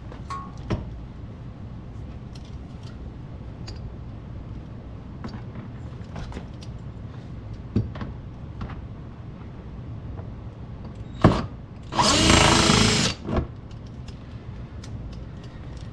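Power drill-driver with a T20 Torx bit running for about a second to back out a fender-liner bolt, with a sharp knock just before it and a short second burst after. Light clicks and taps from handling the tool and bolts come before it.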